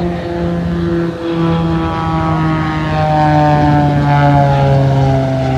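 Piston engines and propellers of two aerobatic planes flying in close formation, a loud steady drone that grows louder to a peak about four seconds in while its pitch slowly falls.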